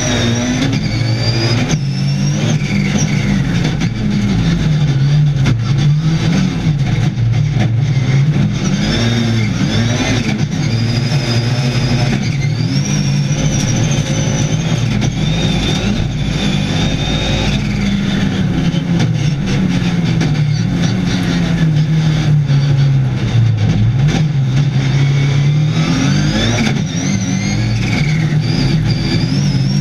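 Rallycross Supercar engine heard from inside the cockpit while racing, the revs repeatedly climbing and dropping as the car accelerates and slows through the lap.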